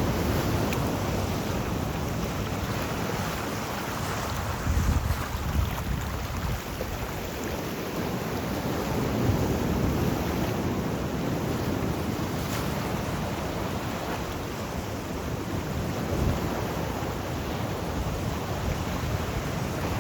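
Sea waves washing in a steady surge and hiss, with wind buffeting the microphone in low gusts, strongest about five seconds in.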